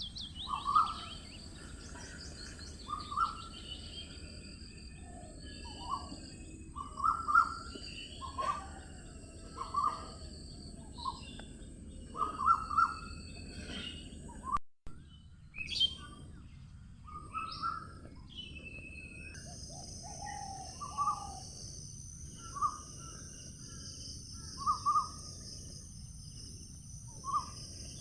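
Several wild birds calling and chirping: a short lower call repeated every second or two, with higher twittering chirps above it. The sound drops out for a moment about halfway, and a steady high hiss joins about two-thirds of the way in.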